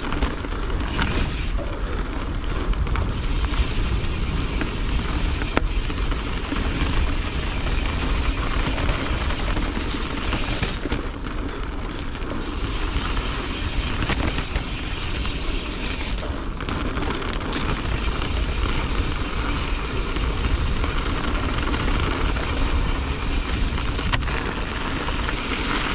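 Wind rushing over an action camera's microphone and knobby mountain-bike tyres rolling over a dirt trail on a fast descent, with the occasional knock and rattle of the bike over bumps.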